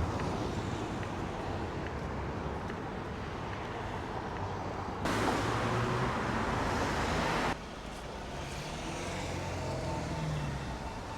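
City traffic noise: a steady rumble and hiss of passing road vehicles. About five seconds in, the hiss jumps louder for two and a half seconds, then drops back abruptly.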